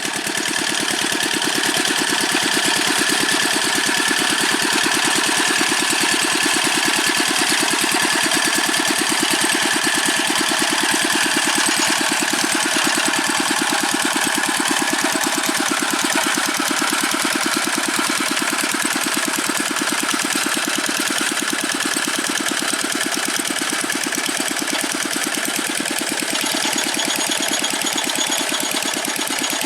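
Old Dongfeng single-cylinder diesel engine of a Quick G600 hand tractor running steadily with a rapid, even knocking beat while working the paddy soil.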